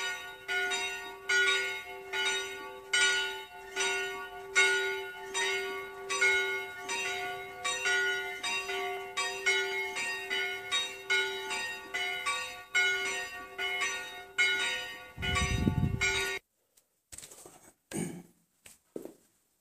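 Church bell ringing for the service in a steady run of strokes, each one leaving a lingering hum. It cuts off suddenly about 16 seconds in, leaving a few faint knocks.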